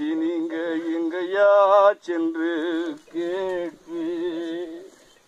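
A man's voice singing long, drawn-out notes in about four phrases with short breaks between them.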